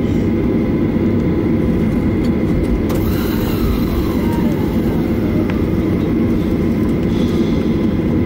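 Cabin noise inside a Boeing 737-800 taxiing after landing: a steady low rumble from the CFM56 engines at taxi idle and the cabin air, with a faint steady high whine over it.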